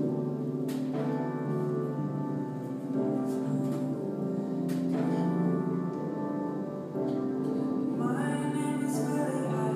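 Electronic keyboard music: sustained chords that change every second or two. About eight seconds in, a voice starts singing over them.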